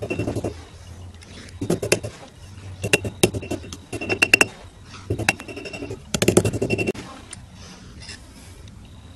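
Hammer tapping a thin metal ring over a steel horn to shape it: quick clusters of sharp metallic taps with a ringing tone, about six bursts over the first seven seconds, then only faint handling sounds.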